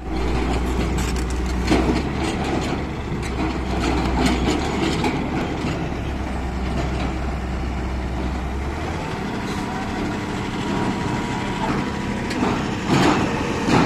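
Heavy construction machinery engine running steadily, with scattered knocks and clanks; its low drone drops away about nine seconds in.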